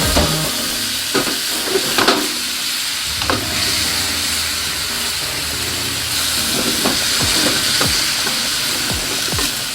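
Food sizzling steadily in a frying pan, with scattered sharp clicks and taps of a utensil against the pan.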